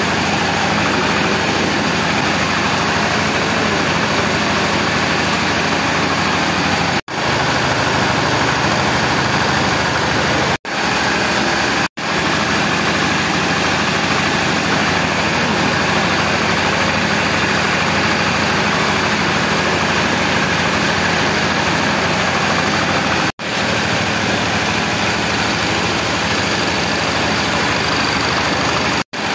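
A rice mill running steadily: the drone of its stationary single-cylinder engine and milling machinery, a low engine hum under loud, even mechanical noise. The sound cuts out for a moment a few times.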